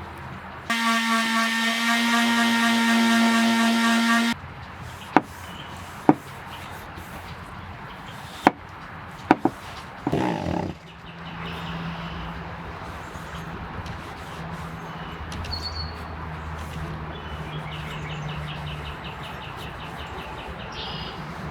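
A small motor runs at a steady pitch for about four seconds, starting and stopping abruptly. Then come several sharp knocks, a short scraping burst and a quieter low steady hum.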